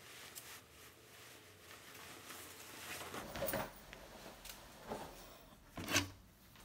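Faint rustling of clothing as a shirt is slipped off, with a few soft handling noises. The loudest is a short bump about six seconds in as a camera is grabbed close to the microphone.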